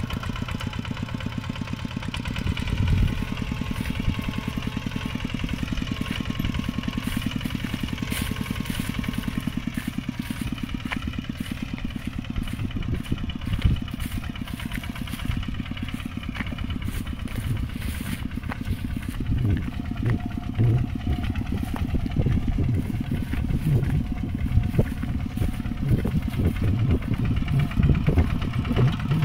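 Single-cylinder diesel engine of a two-wheel walking tractor running at a fast, even beat. It grows rougher and louder, with uneven peaks, in the second half.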